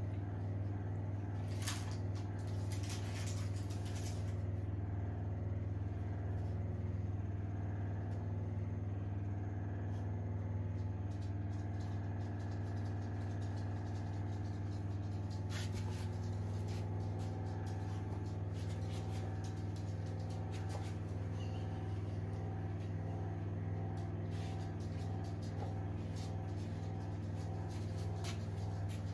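Steady low hum of an electric oven running at full baking heat, with a few faint light clicks now and then.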